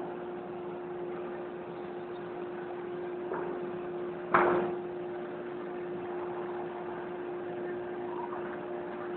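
CNC machine motor humming steadily at one pitch, with a sharp knock about four seconds in.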